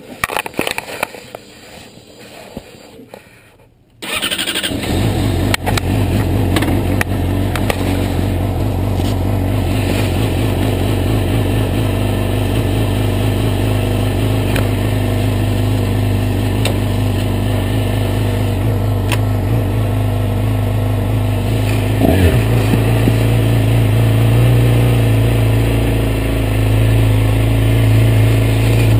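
Yamaha YZF-R6's inline-four engine starting about four seconds in, after a few quiet seconds with faint clicks, then idling steadily. It is picked up through a camera mounted on the fuel tank, and there is a brief sharp sound near the end.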